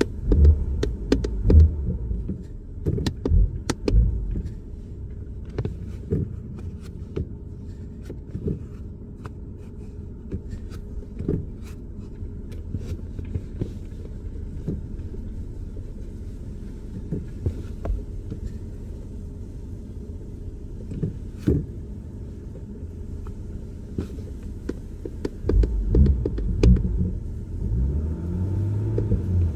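BMW 440's straight-six engine running in the cabin with a steady low rumble, rising in short louder surges of throttle in the first few seconds and again near the end. Scattered light clicks and taps.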